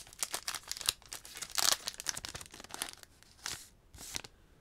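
Foil Pokémon booster pack wrapper being torn open and crinkled by hand: a quick run of crackles and short rips.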